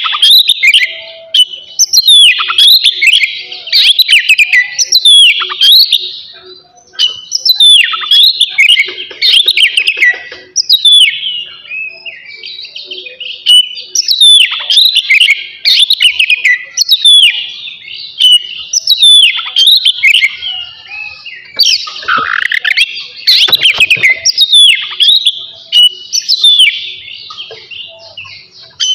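Oriental magpie-robin (kacer) singing loudly: a rich, varied song of fast whistled and chattering phrases, coming in runs of several seconds with short pauses between them.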